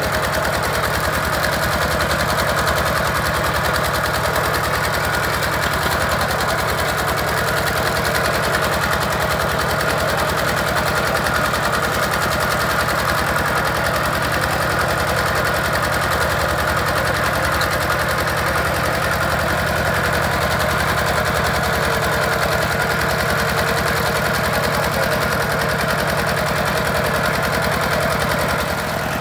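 Kubota two-wheel walking tractor's single-cylinder diesel engine running steadily under load, with a fast, even chugging as it pulls a loaded trailer through flooded mud.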